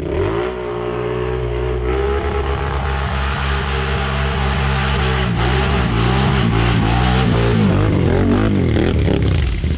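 ATV engine running hard with the throttle worked on and off: its pitch holds fairly steady at first, then from about halfway rises and falls repeatedly in quick swings.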